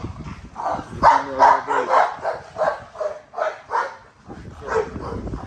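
A dog barking in a quick run of short barks, about three a second, stopping briefly about four seconds in, then one more bark near the end.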